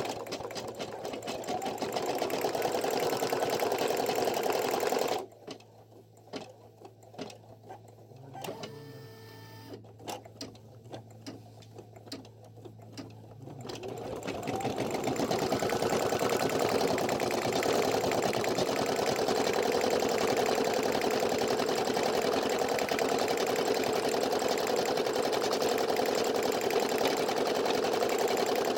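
Brother PE800 computerized embroidery machine stitching a fill pattern, a fast, steady needle clatter. About five seconds in it drops for several seconds to a low motor hum with scattered single clicks, then the stitching builds back up to full speed.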